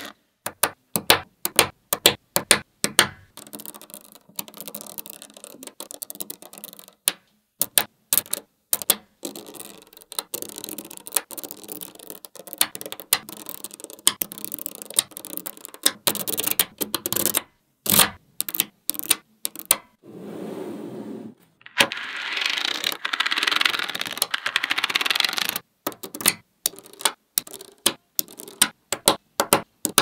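Small magnetic balls clicking and snapping together as blocks of them are pressed onto a layered build, with many sharp clicks and a few stretches of dense rattling as the balls grind and roll against one another, the longest about two-thirds of the way in.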